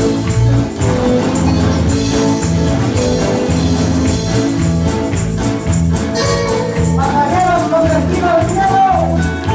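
Live worship band music: electric guitars, bass, keyboard and an electronic drum kit playing a steady beat, with a man's singing voice coming in about seven seconds in.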